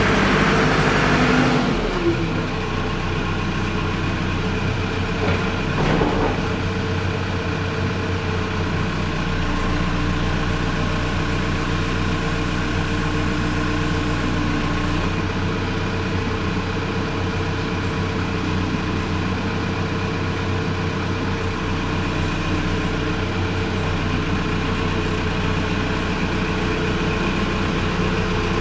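JCB 3CX backhoe's diesel engine idling steadily. A louder rush of noise falls away about a second and a half in, and a single knock sounds about six seconds in.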